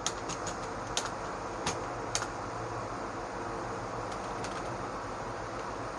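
Steady hum of a desktop computer's cooling fan running after power-on. Several sharp clicks fall in the first two seconds.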